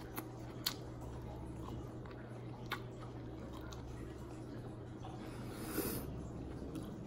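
Close-up mouth sounds of a woman chewing rice, fish and noodles, with a few sharp wet clicks and a short hiss near the end, over a steady low hum.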